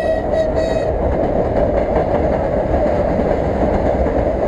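Off-road vehicle engines running under load during a tow-line recovery on snow, a loud steady rumble. A faint thin whine fades out about a second in.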